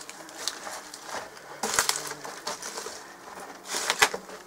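Footsteps crunching on broken stone and concrete rubble going down steps, with irregular sharper knocks, the loudest about two and four seconds in.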